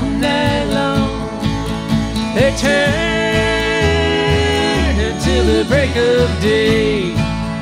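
Acoustic country string band of fiddle, acoustic guitars and upright bass playing an instrumental break, the lead line sliding and bending between notes over a steady bass pulse.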